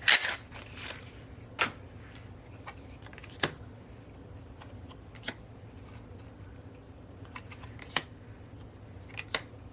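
Paper photo cards being handled, flipped and set down: light rustling with scattered sharp clicks and taps, the loudest right at the start.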